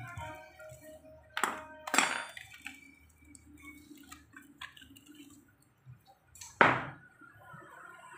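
Metal tools and engine parts clinking and knocking as they are handled: two sharp clinks with a brief ringing about one and a half and two seconds in, then a louder knock about six and a half seconds in.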